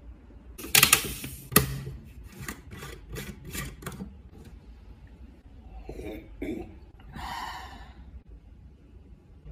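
Aluminium coffee bottle being handled and opened. A loud crackle comes about a second in, then a run of sharp clicks as its screw cap is twisted open, with softer handling noises later.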